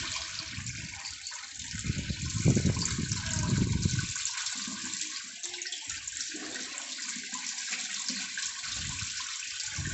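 Tap water running steadily and splashing over raw chicken pieces as they are rinsed of their vinegar-and-salt soak, with irregular louder splashes.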